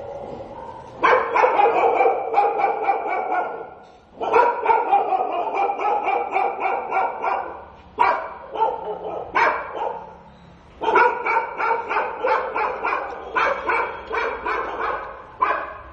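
Stray dog barking in fast, insistent runs of several barks a second, four long runs broken by short pauses.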